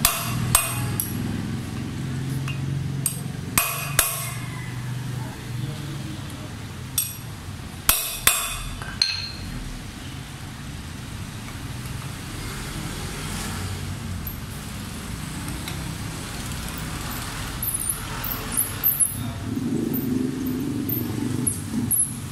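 Hammer blows on a steel T-bar wrench seated on a motorcycle brake-disc bolt, sharp metallic strikes in three quick pairs, to shock the tight bolt loose. Later come lighter metal clinks as the wrench is turned by hand, over a steady low hum.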